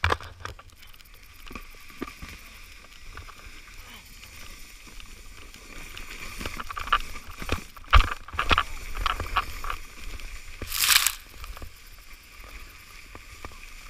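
A sled sliding fast down a snowy slope: a steady scraping hiss of snow with repeated knocks and jolts, the hardest about eight seconds in, and a brief louder hiss about eleven seconds in.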